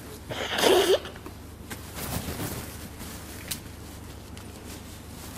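A man's voice breaking into a single breathy sob about half a second in, followed by a low steady hum with faint stirrings.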